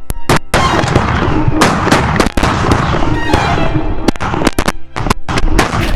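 A rapid, ragged volley of shotgun shots from several hunters firing at once at a flock of snow geese, with many overlapping blasts throughout.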